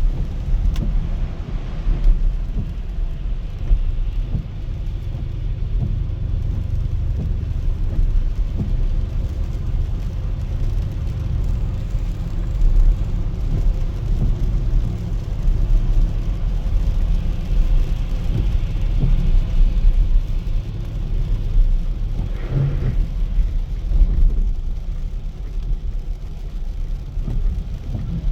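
Car driving on a rain-wet road: a steady low rumble of engine and tyres.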